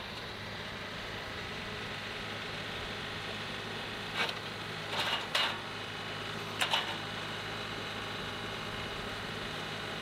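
John Deere 2038R compact tractor's three-cylinder diesel running steadily while its loader grapple works a slab on the sawmill, with a few short knocks of the grapple and wood a little after the middle.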